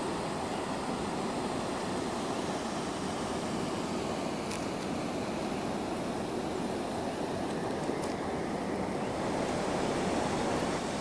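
Steady rush of a muddy river's water flowing fast past a low bridge set at the level of the riverbed.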